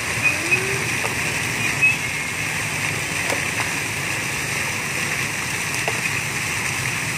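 Fountain water jets spraying and splashing back down into the basin, a steady rushing hiss.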